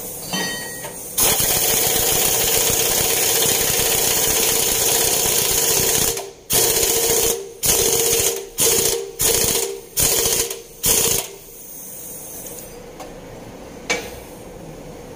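An impact wrench runs continuously for about five seconds, then is triggered in about seven short bursts, as when a bolt is driven home and snugged down. A single sharp click comes near the end.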